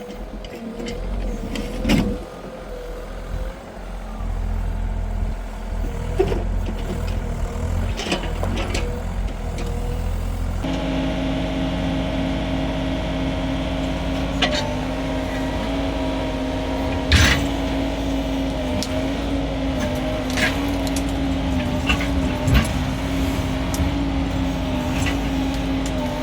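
Mini excavator's diesel engine running steadily, stepping up to a higher, louder note about ten seconds in, with scattered metallic knocks and clanks.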